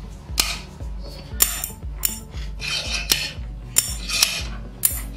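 Background music with a steady beat over sharp metallic clinks and scrapes from a steel bar clamped in a homemade steel bench vise.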